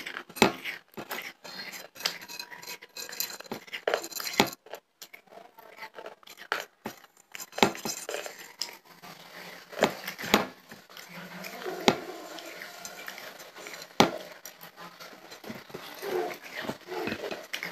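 Fingertips picking and scraping dry clay crumbs across a plate, with a handful of sharp clicks as fingers or nails hit the plate. Soft chewing and mouth sounds come close to a clip-on microphone.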